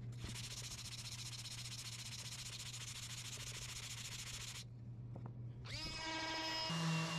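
For the first four and a half seconds a steady hiss runs over a low hum, then cuts off suddenly. About a second later the electric motor of a DeWalt 20V MAX random orbital sander spins up with a quickly rising whine and settles into a steady run.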